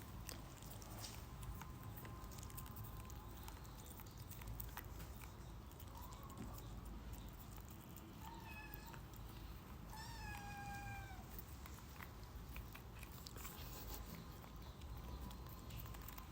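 Kitten meowing twice about halfway through: two high meows, each falling slightly in pitch, the second longer. Faint scattered ticks around them.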